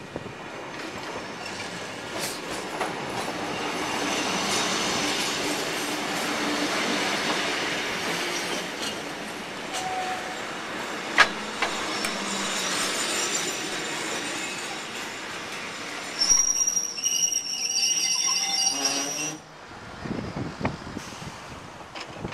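English Electric DM/D-class electric multiple unit running past on the rails, its running noise building over the first several seconds. Near the end a high, steady squeal lasts about three seconds as it slows, then stops suddenly.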